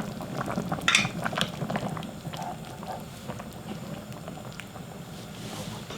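A pot of beef brisket broth boiling hard over high heat, bubbling and crackling steadily, with a sharp knock about a second in.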